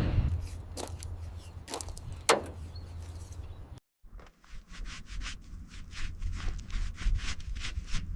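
A few separate knocks, then, after a brief cut to silence, a quick run of short scraping strokes, about five a second, like hand work on a surface.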